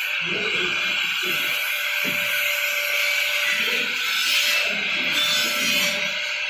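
Steady machinery hum and hiss with a faint even tone, under low murmured voices.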